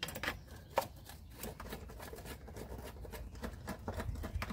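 Socket wrench on a long extension loosening the valve-cover bolts of a straight-six engine, a run of light, irregular metallic clicks.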